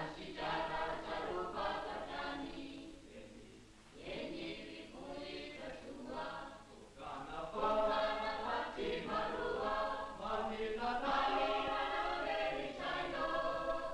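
A group of children singing a ring-game song together in chorus, with brief pauses between phrases.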